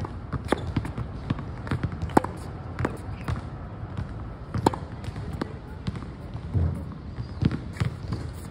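Tennis ball hit against a practice wall: a series of sharp pops and knocks at irregular spacing, from racket strikes, the ball hitting the wall and bouncing on the court, over a low steady rumble.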